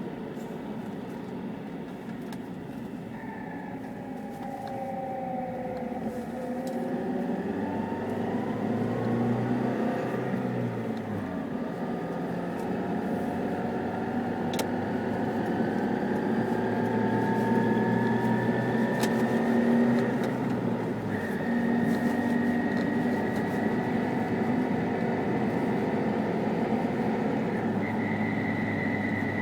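Chevrolet Niva on the move with a pitched howl over the running noise. The howl dips early on, then rises steadily in pitch as the car gathers speed, breaking off and stepping up a few times. It is the howl and whistle the car is being recorded for.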